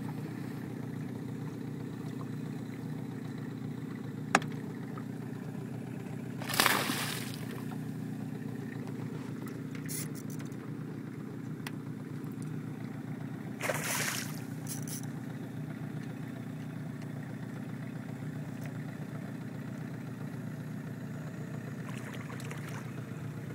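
Hooked muskellunge splashing at the surface, two brief splashes about seven seconds apart with a few fainter ones, over a steady low hum. A single sharp click comes a few seconds in.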